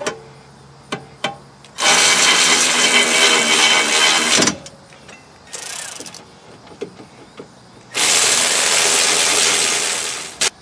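A power wrench runs in two long bursts of about two and a half seconds each, with a shorter, fainter burst between them, as the rear brake caliper bracket bolts are driven in.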